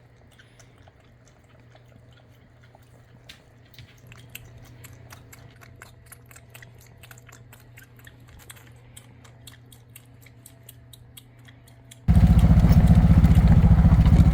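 A baby goat suckling, making many quick, irregular wet clicks over a low hum. About two seconds before the end, a loud vehicle engine running cuts in abruptly.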